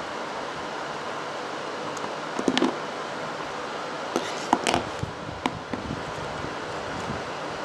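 Freshly activated homemade fluffy, crunchy slime being squeezed and stretched by hand, giving scattered small pops and clicks, a little cluster about two and a half seconds in and more from about four to six seconds, over a steady hiss.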